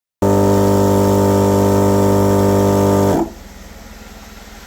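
Jeep-licensed Thor's Lightning Strike 12-volt portable air compressor running with a loud, steady hum, then winding down and shutting off a little after three seconds in as the tire reaches its set target pressure of 30 psi. A quieter steady low hum carries on after it stops.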